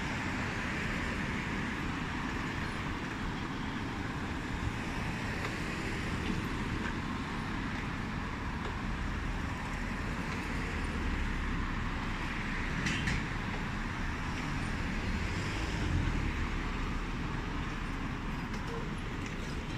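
City street traffic noise: a steady hum of cars and electric scooters on a busy tree-lined road, with a brief sharp sound about two-thirds of the way through.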